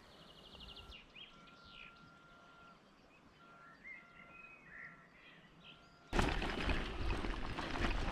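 Birds calling faintly, a few clear whistled notes, some held about a second and some short and gliding. About six seconds in, a bicycle riding over a bumpy grassy track cuts in: a louder rumble full of knocks and rattles.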